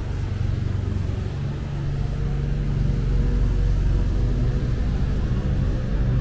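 Low, steady rumble of a motor vehicle's engine, growing louder about two seconds in.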